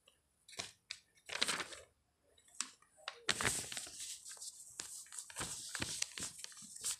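Rustling and scattered soft clicks of handling and movement, sparse at first and busier from about three seconds in.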